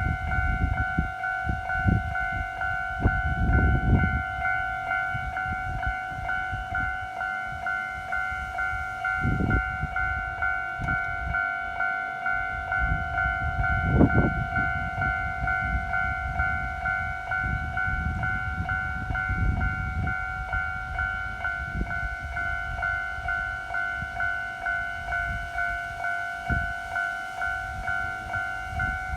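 Japanese level-crossing warning bell ringing: an electronic ding-ding repeating evenly about twice a second without letting up. Irregular low rumbling comes and goes underneath.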